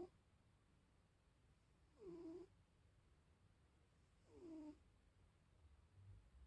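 Tabby cat snoring in its sleep: two short, soft, high-pitched snores about two seconds apart, each dipping slightly in pitch.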